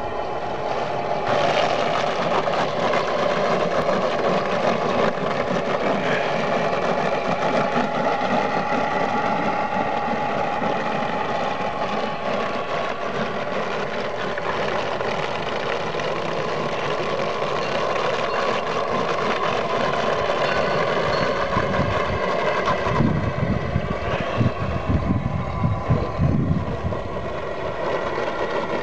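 Radio-controlled model tugboat's engine running steadily as the boat cruises. About three-quarters of the way through, a few seconds of irregular low rumbling knocks join it.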